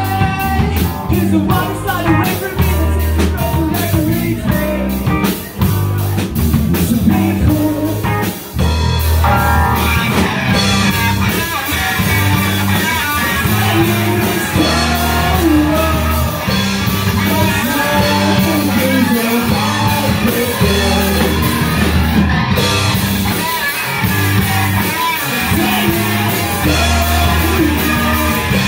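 Live punk/emo rock band playing: sung lead vocals over electric guitar, bass guitar and drum kit, with cymbals filling in more from about nine seconds in.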